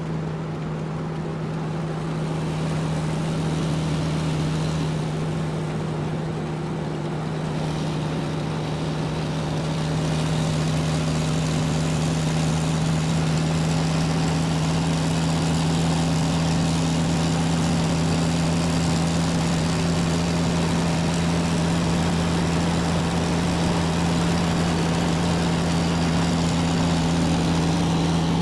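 Steady motor hum with a low drone that holds one pitch throughout, getting a little louder about ten seconds in.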